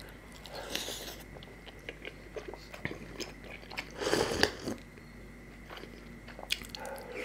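Close-miked eating sounds: biting and chewing on South Indian food, with a louder slurp from a small cup about four seconds in.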